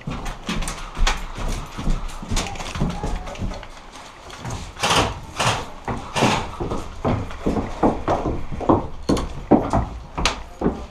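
Footsteps thudding on wooden stairs and floorboards, with gear and the rifle knocking along, in a run of about two steps a second in the second half.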